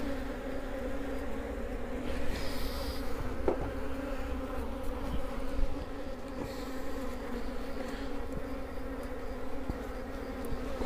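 Honeybees buzzing in a steady hum over an open hive, with a faint click or two from the frames being handled. The beekeeper finds the colony somewhat irritable today.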